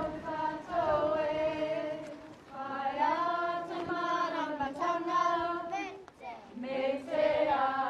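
Voices singing together in unison, in long held notes that glide gently in pitch, with short breaks between phrases.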